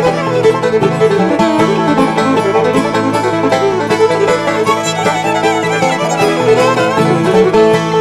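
Bluegrass-style background music with fiddle and banjo.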